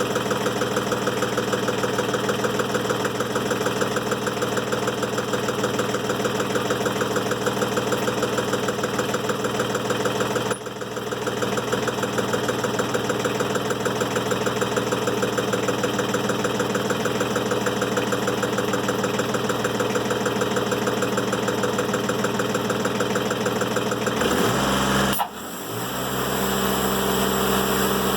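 Timberking 1400 bandsaw mill's engine running steadily as the mill saws through a black locust log, with a brief dip about ten seconds in. Near the end the engine speed shifts, drops off sharply, then settles into a new steady running pitch.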